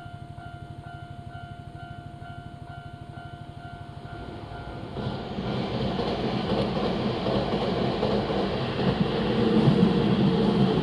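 Level crossing alarm ringing its steady repeating electronic ding, about two a second. About five seconds in, a Keisei Main Line train arrives and runs past the crossing; its wheel and running noise grows louder and drowns out the bell.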